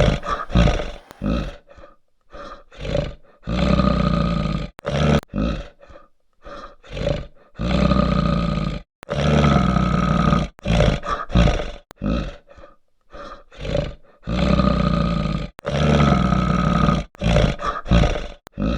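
Bear-roar sound effect: a string of rough, growling roars, each a second or two long, with short silences between them and the same roar repeating several times.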